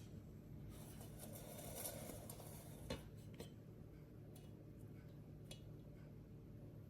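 Near silence: faint room hum with a brief soft rustle and a few small clicks.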